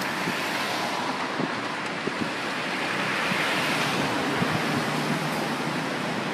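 Steady rush of wind blowing over the microphone of a camera moving along at running pace, with a few faint knocks from the camera's handling.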